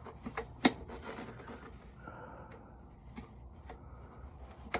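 Hand tool working at the O-ring of a 4L60E transmission's servo cover: a few sharp clicks, most of them in the first second, and faint rubbing and scraping as the tool catches on the ring.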